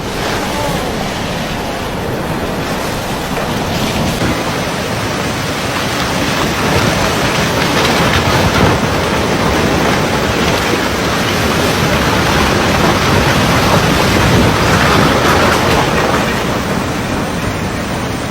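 Fast-flowing floodwater rushing steadily, a dense continuous noise that swells slightly and then eases near the end.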